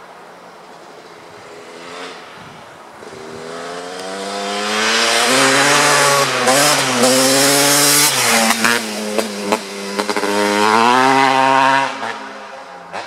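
Kawasaki KX250 two-stroke single-cylinder engine with an FMF Gnarly pipe, ridden past at speed: the note swells as the bike approaches, its pitch rises and falls as the throttle is worked, then drops away sharply as it goes by.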